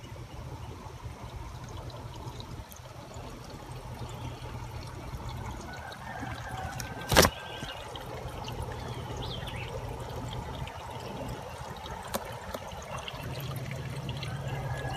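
Storm runoff water trickling and flowing steadily, with a single sharp click about halfway through.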